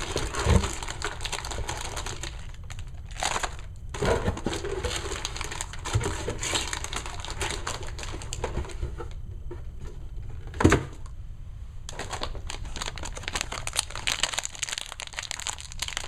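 Crinkling of torn foil booster-pack wrappers and plastic figure packaging being handled, with a couple of louder knocks, about half a second in and about two-thirds of the way through.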